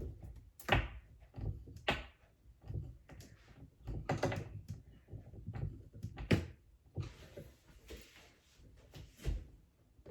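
Irregular knocks, clicks and bumps of a wooden kitchen cabinet door being handled, with a freshly fitted knob, and a stretch of soft rustling about three quarters of the way through. The loudest knocks come about a second in, at about four seconds and at about six seconds.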